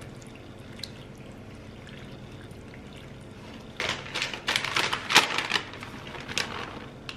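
Pasta sauce being poured onto cooked pasta: a run of short, wet pouring sounds starting about four seconds in and lasting a couple of seconds.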